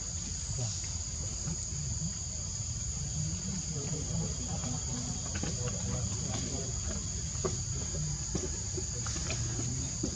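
Steady high-pitched drone of forest insects, in two even, unbroken tones, over a low background rumble.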